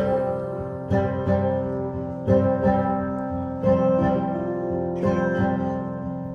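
Acoustic guitar strumming chords in an instrumental passage, one sustained strum roughly every second and a quarter, with no vocals.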